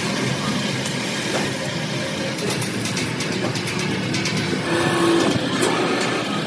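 Steady machinery noise in a metal workshop, with a few light metallic clicks about halfway through and a low steady hum coming in near the end.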